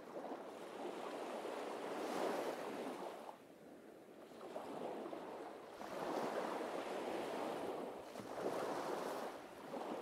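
Small waves breaking and washing up a sandy beach, the surf swelling and fading in about three surges.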